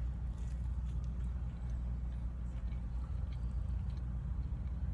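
A steady low hum with a few faint ticks over it.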